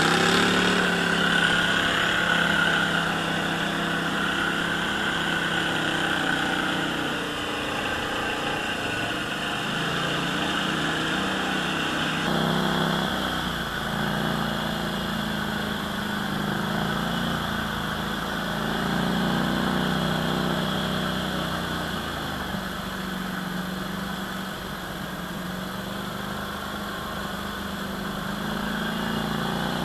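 ATV engine running at low trail speed, its pitch wavering up and down as the throttle changes, with an abrupt shift in the sound about 12 seconds in.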